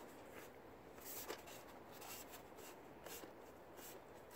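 Faint rustling and a few light ticks of gloved hands handling a pleated paper panel air filter and its plastic housing.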